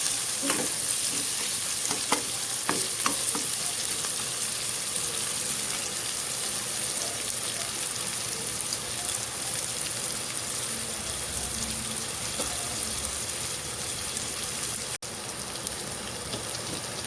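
Oil sizzling steadily in a pan as food fries, with a few utensil clicks from stirring in the first few seconds.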